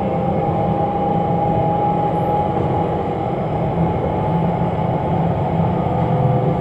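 Steady interior running noise of the Batara Kresna diesel railbus under way: a low drone from the engine and wheels on the rails, with a faint whine that fades about two and a half seconds in.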